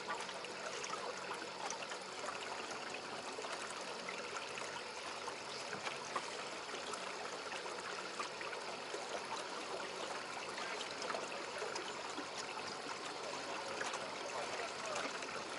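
Water lapping against the hull of a small bass boat: a steady trickling wash sprinkled with small splashes.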